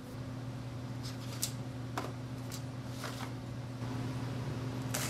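Steady low electrical hum, with a few faint light clicks scattered through it.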